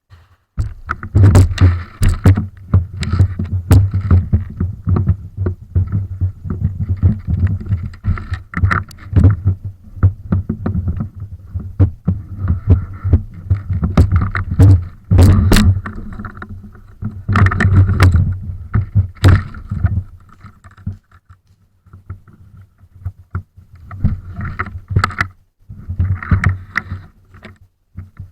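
Loud low rumbling noise on the microphone, broken by many sharp clicks and knocks; it falls away briefly about two-thirds of the way through.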